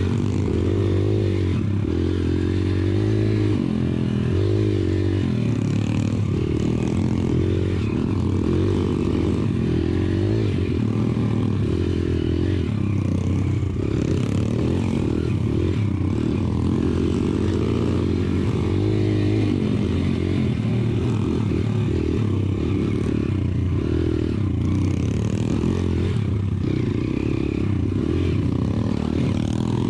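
YCF pit bike's single-cylinder four-stroke engine running at low trail speed, its pitch rising and falling repeatedly as the throttle is opened and closed, with chassis rattle.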